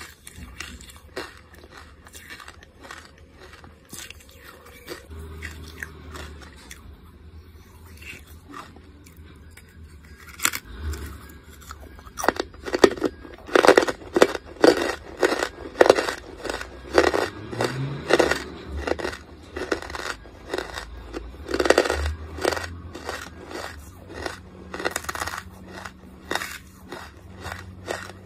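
Charcoal being chewed and crunched in the mouth. It is soft chewing at first, then from about halfway a run of louder, sharp crunches about two a second, easing off near the end.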